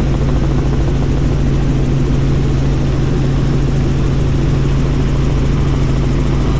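Bell helicopter's engine and rotor running steadily, heard from inside the cabin: a constant loud drone with a steady low hum.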